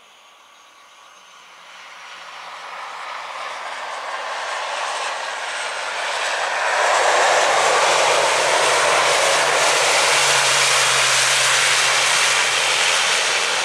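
An ATR 72-600's twin turboprop engines (Pratt & Whitney Canada PW127M) and propellers during the landing roll just after touchdown. The sound grows steadily louder as the aircraft rolls closer, holds loud for several seconds, and starts to fade near the end.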